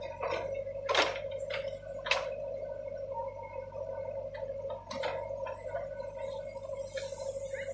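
JCB earthmover running with a steady mid-pitched whine, with several sharp metallic knocks, the loudest about a second in.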